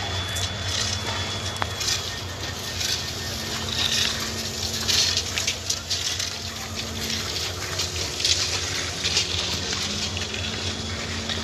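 Outdoor site noise: a steady low engine-like hum under a rushing hiss, with scattered knocks and crunches.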